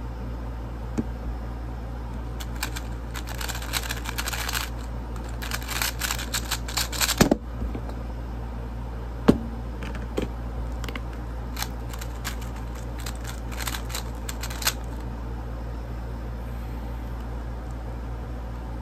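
A QiYi Tornado V3 M magnetic 3x3 speedcube turned at speed: two long runs of rapid clicking layer turns. A loud knock ends the first run, and a second sharp knock follows about two seconds later. A steady low hum lies underneath.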